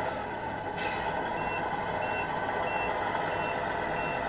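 RC truck sound module playing a diesel truck engine running while it reverses, with reversing beeps of one high tone sounding about every two-thirds of a second, five times. There is a brief hiss about a second in.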